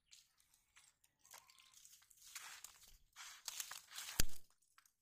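Dry straw crackling and rustling as someone shifts about on it, with a sharp click about four seconds in.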